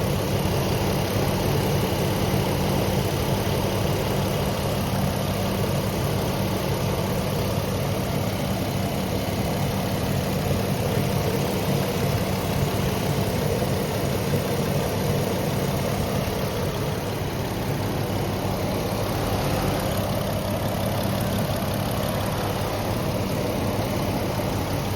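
Jeep engine idling steadily, fitted with a newly replaced alternator and exhaust manifold.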